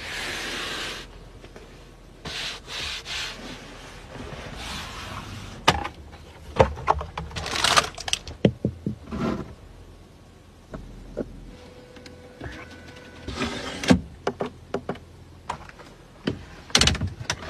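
Hands handling the rear-cabin fittings of a Mercedes-Maybach S-Class: bursts of rubbing and rustling, and a run of sharp clicks and knocks as the plastic centre armrest compartment and its folding tray are worked.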